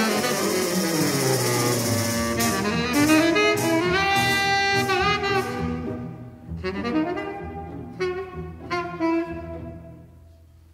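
Tenor saxophone playing a melodic jazz line over a bowed string orchestra and double bass. About four seconds in the saxophone holds a long wavering note; after that the phrases get shorter and the music fades quieter toward the end.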